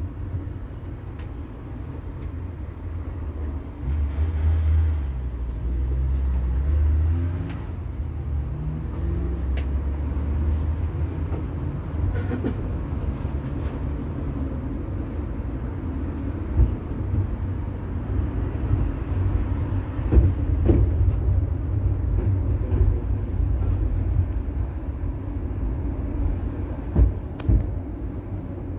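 Interior running noise of a KTM-23 (71-623) tram under way: a steady low rumble of wheels on rails and the traction drive. A low motor hum rises and falls in pitch over the first several seconds, and occasional sharp knocks come through later.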